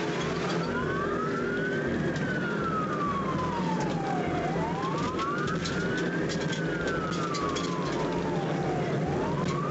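Police car siren in a slow wail, rising and falling about every four seconds, over steady engine and road noise.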